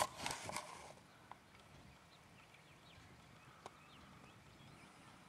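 Quiet outdoor background: a few sharp knocks in the first half-second, then faint high chirps scattered through the rest.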